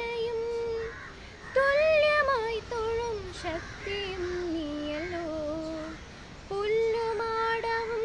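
A girl singing solo and unaccompanied: a slow melody of long held notes, with short breaks for breath about a second in and again about six seconds in.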